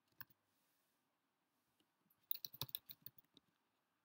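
Faint computer keyboard typing: one or two keystrokes near the start, then a quick run of keystrokes from about two seconds in.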